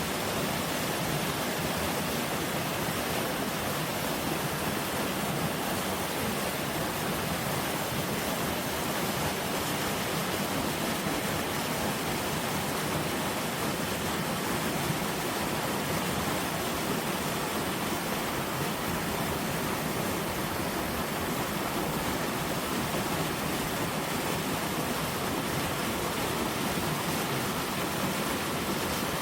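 Mountain valley stream running full with melting spring snow: a steady, unbroken rush of water.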